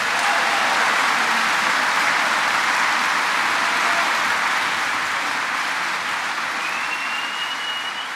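A large audience applauding: dense, steady clapping that begins to fade near the end.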